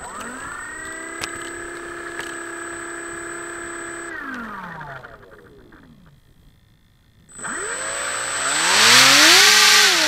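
Electric motor and propeller of an FPV Raptor radio-controlled plane spinning up to a steady whine, holding for about four seconds, then winding down. After a short quiet pause it revs up again, louder, with a rush of propeller air near the end before easing off.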